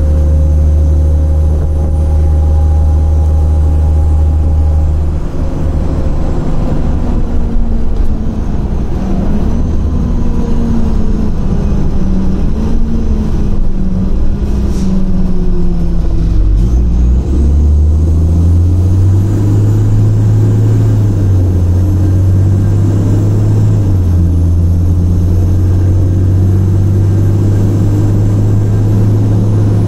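2006 Orion VII transit bus's Cummins ISL diesel engine running loud, a steady low drone at first, then its pitch rising and falling as it works under load through the middle, then settling into a steady drone again.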